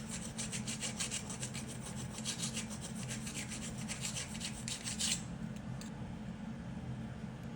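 Fast, even back-and-forth scraping strokes by hand on a tile surface, about five or six a second, that stop abruptly about five seconds in.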